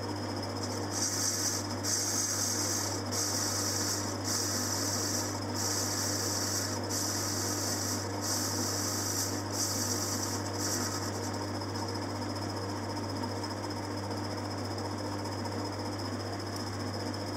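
Metal lathe running while a turning tool takes a facing cut across a small steel-grey flywheel: a steady motor hum under a hissing cutting noise. The hiss comes in stretches with short breaks for about the first ten seconds, then fades, leaving mostly the lathe's hum.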